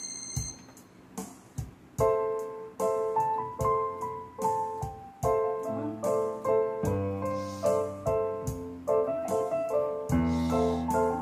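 Solo piano music played on a digital piano: a quiet patch with a few soft single notes, then a steady run of repeated struck chords, with low bass notes joining in about halfway through.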